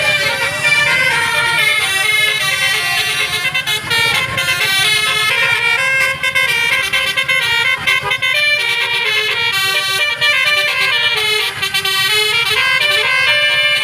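Bus 'telolet' horn, a bank of tuned horns, playing a quick melody of short stepping notes without a break, over a steady low engine rumble.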